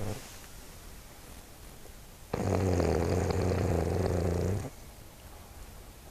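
Snoring: one loud, pitched snore lasting about two seconds, starting a little over two seconds in, with quieter breathing before it.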